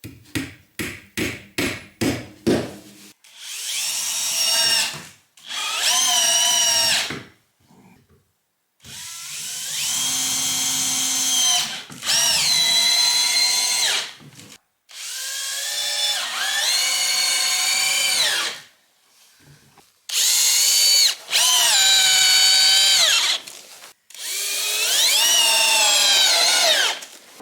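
A hammer tapping quickly about eight times, then a power drill working wood in about eight bursts of one to three seconds each, its whine rising as it speeds up and falling away as it stops.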